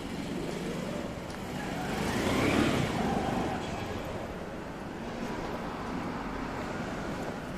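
Street traffic: a car passes, swelling to its loudest about two and a half seconds in with a rising engine note, over steady town background noise.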